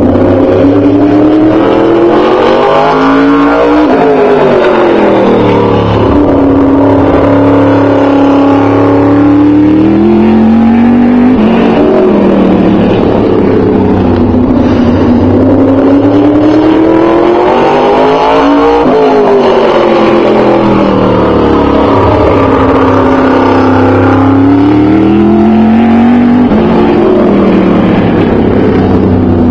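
Open-wheel modified race car's engine lapping a short oval alone in practice, very loud. The engine note climbs on the straights and falls away into the turns, twice over as it goes round.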